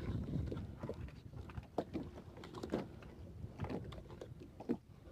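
Fishing net being hauled by hand into a small boat: scattered, irregular knocks and clicks of the net and its gear against the boat, over a low rumble.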